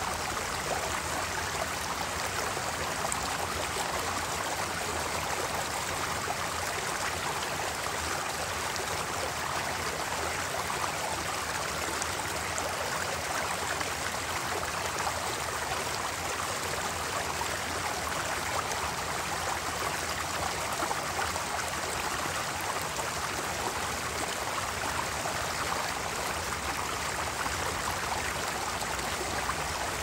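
Mountain stream flowing, a steady, unbroken rush and babble of water.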